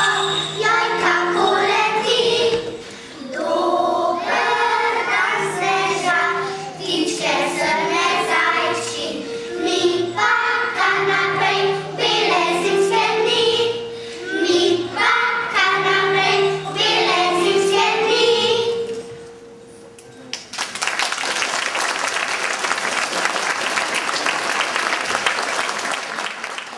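Young children's choir singing in unison with piano accompaniment. The song ends about 19 seconds in, and after a short pause the audience applauds.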